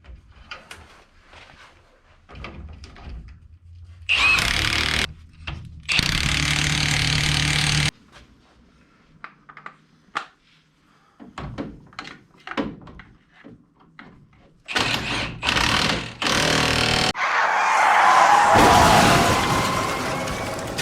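A power tool running in short runs of one to two seconds at a time, with clicks and knocks of tools and parts between runs. Near the end, a broad rush of noise swells and then fades.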